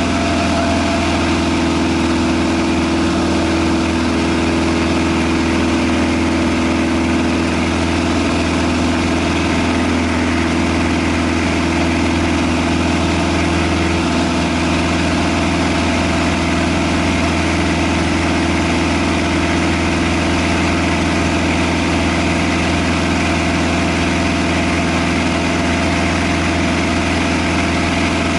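Cessna 172 floatplane's piston engine and propeller running steadily at an even pitch.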